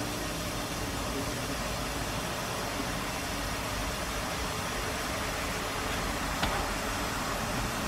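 Steady hiss of steam from a standing narrow-gauge steam tank locomotive, with a faint click about six and a half seconds in.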